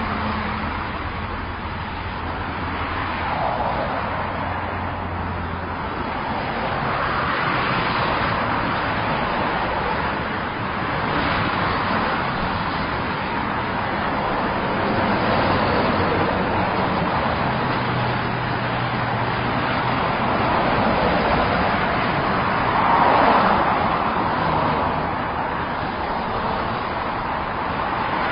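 Continuous highway traffic: a steady wash of tyre and engine noise with cars passing by every few seconds, each swelling and fading, the loudest about 23 seconds in.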